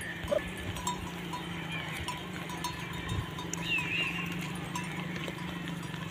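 A grazing flock of sheep and goats, with small livestock bells clinking every now and then over a steady low hum, and a short high warbling call about four seconds in.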